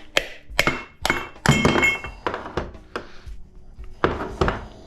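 Hammer blows on the metal parts of a small fan motor, a run of about eight sharp knocks with a metallic ring, while the copper stator is knocked out of its housing.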